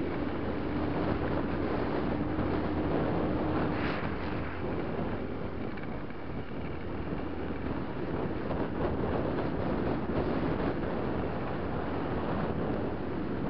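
Enduro motorcycle engine running at riding speed on a dirt track, with wind buffeting the microphone. A steady low tone in the engine sound fades out about four seconds in.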